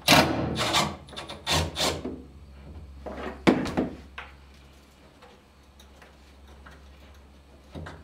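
Three short bursts of rubbing and scraping from parts being handled within the first four seconds, then only a steady low hum.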